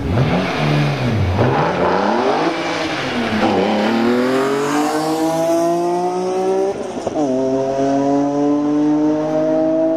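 BMW M3 pulling away hard and accelerating, its engine pitch climbing steadily through the revs, with one upshift about seven seconds in, after which it climbs again.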